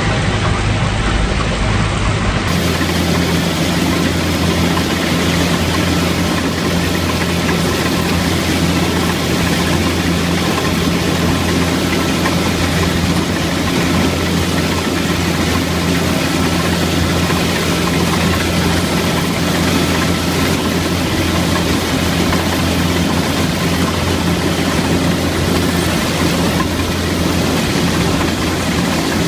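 Rice combine harvester running steadily while cutting, heard close up from the operator's seat: an even engine drone with a thin steady whine from the machinery above it.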